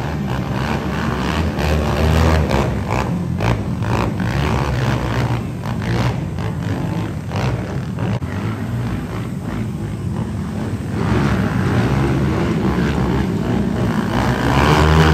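Vehicle engines running during a race, a steady low engine note with rough noise over it, growing louder near the end.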